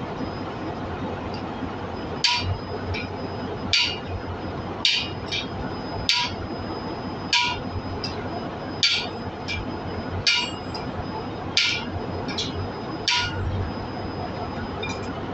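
Steel hammer striking a seat driver to drive a new exhaust valve seat into a diesel cylinder head: nine sharp, ringing metallic blows, about one every second and a half, several followed by a lighter rebound tap.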